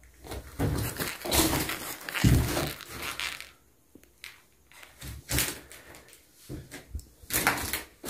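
Irregular footsteps scuffing and crackling over dry leaves and broken wooden debris, with a quiet pause about four seconds in.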